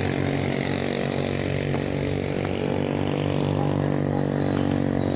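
A small engine running steadily at an unchanging speed, a continuous even drone.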